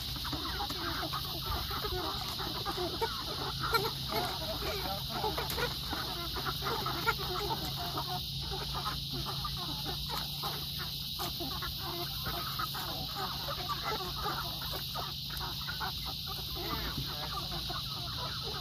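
A flock of meat chickens clucking continuously, many short calls overlapping, with a steady low hum underneath.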